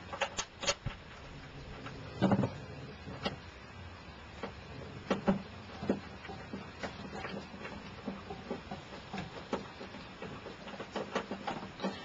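Irregular small clicks and taps of hand work on wiring: ring terminals and a screw being fitted onto a terminal post, with a couple of louder knocks about two and five seconds in.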